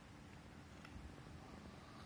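Himalayan Persian cat purring faintly, a low steady rumble.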